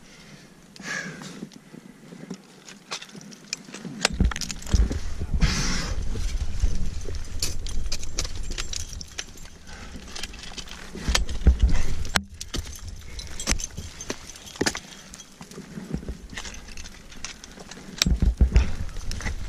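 Ice axes and crampons striking and scraping on ice and rock: irregular sharp knocks and scrapes, with bursts of low rumble in between.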